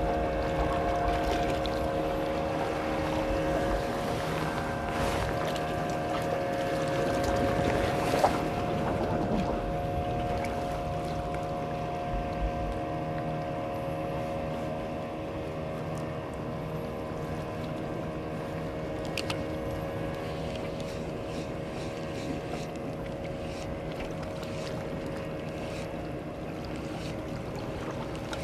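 Small motorboat engine running steadily, a droning hum that grows a little fainter in the second half.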